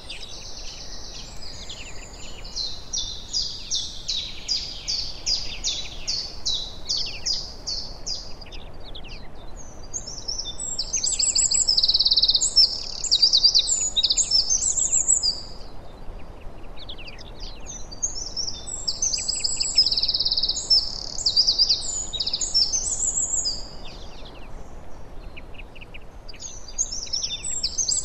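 Small songbirds singing: first a long run of quick, evenly repeated high notes, then two loud spells of dense twittering song, one near the middle and one about two thirds through, over a faint steady background hiss.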